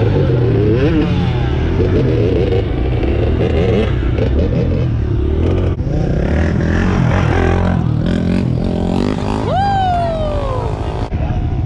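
Dirt bike and four-wheeler engines running and revving, with repeated rises and falls in pitch. Near the end a high whine climbs and then slowly falls away.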